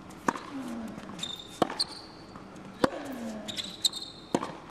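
Tennis rally on an indoor hard court: a racket strikes the ball about every second and a half, with lighter ball bounces between hits. Shoes squeak on the court surface, and a player grunts with some of the shots.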